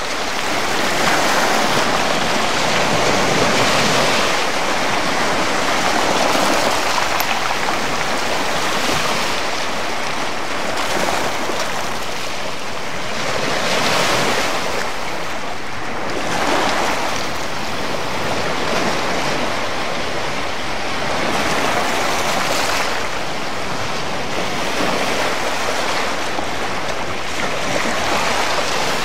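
Small sea waves washing and breaking in the shallows in a steady rush that swells every few seconds.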